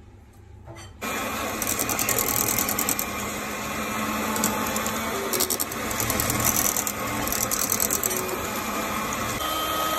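Electric hand mixer switched on about a second in, its beaters running steadily through thick cooked custard in a metal pot, with a fast rattling flutter.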